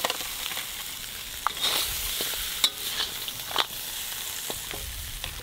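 Crab pieces sizzling in a hot wok as they are stir-fried, with several sharp clanks of the spatula against the wok.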